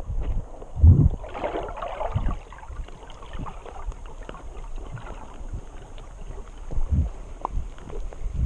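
Underwater camera audio: muffled water noise around the camera housing with low thumps now and then, and a short fizzing rush about a second and a half in.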